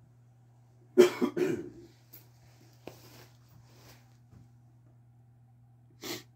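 A man coughs, a quick run of two or three coughs about a second in, over a faint steady hum. A small click follows about three seconds in, and a short hiss comes near the end.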